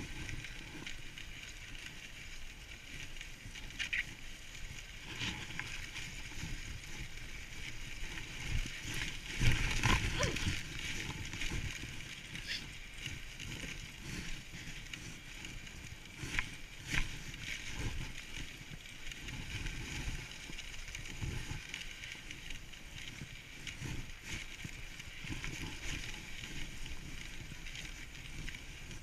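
Dog sled running over snow behind a team of Alaskan huskies: a steady scraping hiss of the runners on the snow, with a few louder jolts, the loudest about a third of the way in.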